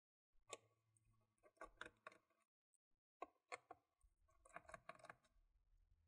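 Faint clicks and light metallic taps as small screws are backed out of a laptop's plastic bottom cover with a small Phillips screwdriver, in several short clusters.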